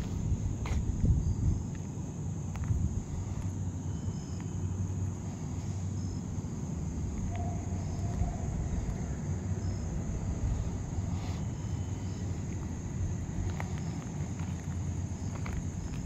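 Crickets chirring in a constant high drone over a steady low rumble, with a few faint ticks.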